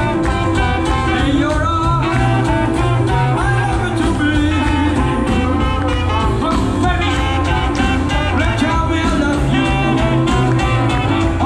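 Live band playing upbeat, jazz-style music with a steady beat.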